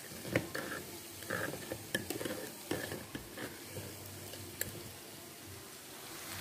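Metal spoon clicking and scraping in a plastic jar of ground black pepper, a few sharp clicks, over the sizzle of a frying pan of tomatoes and onions.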